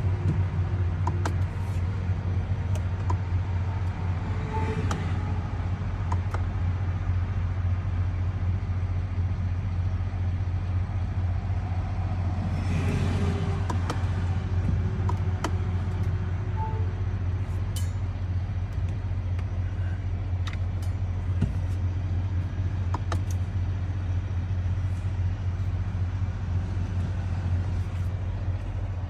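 Steady low rumble with faint scattered clicks and a brief louder noise about thirteen seconds in.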